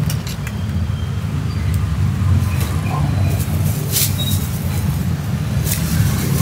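Steady low rumble of street traffic, with a few short crackles of plastic wrap and crisp grilled rice crackers being handled, the sharpest about four seconds in.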